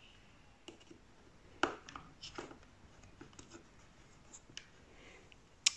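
Light handling clicks and scrapes of multimeter test probes being set against the metal spade terminals of a vacuum cleaner's rocker switch, the sharpest click about a second and a half in.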